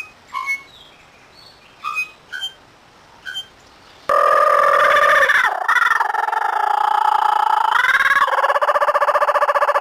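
A bird calling: a few short separate chirps, then about four seconds in a loud, continuous trilling call with a fast flutter, its pitch dipping briefly twice.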